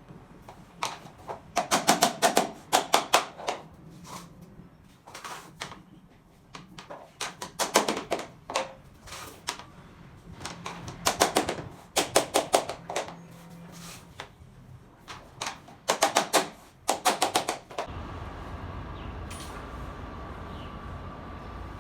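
Quick runs of sharp knocks, several a second in bursts of a second or two, typical of SPC stone-plastic floor planks being tapped together to lock their click joints. About 18 s in the knocking stops and a steady low hum takes over.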